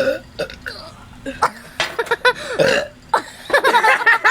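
A person burping on purpose, a few loud belches one after another, fuelled by drinking soda. Quick voices or giggling come in near the end.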